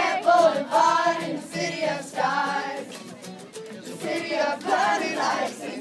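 Several voices singing a pop song live.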